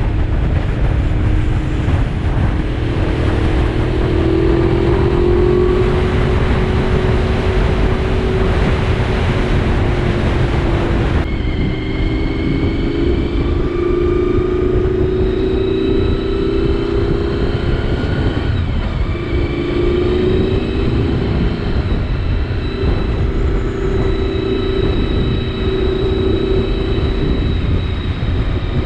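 Honda VFR750 V4 engine running at a steady cruise, its note drifting up and down a little and dipping briefly about two-thirds of the way through, with a heavy rush of wind beneath it.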